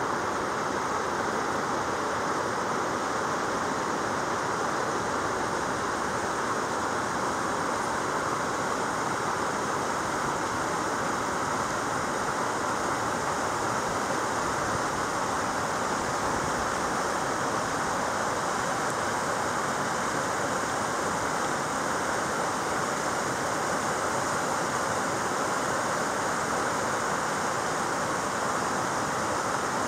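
Steady rush of moving water in a mountain valley, an even unbroken sound with no separate splashes or other events.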